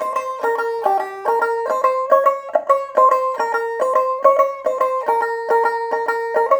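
A newly made, unpolished tumbi, the Punjabi plucked string instrument, played in a quick melody of about five plucked notes a second to test its sound.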